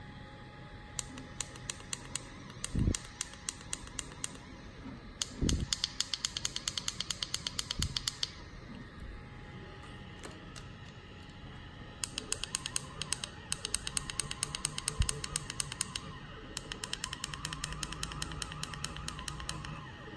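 CNC3018 Pro desktop router's stepper motors being jogged in short repeated steps from a handheld offline controller, giving runs of rapid even ticking, up to about ten ticks a second, that start and stop several times. A faint steady whine runs underneath, and there are a few dull knocks.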